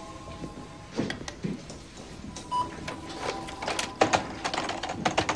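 Desktop computer being operated: a short electronic beep about two and a half seconds in, then rapid keyboard clicks, over faint held tones.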